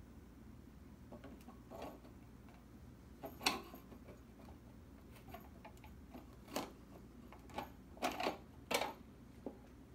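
Perforated sheet-metal tube cage of an Ampeg B-15-N amplifier being fitted over the tubes onto the chassis: light metal clicks and rattles, with sharper knocks about three and a half seconds in and several more near the end, over a faint steady low hum.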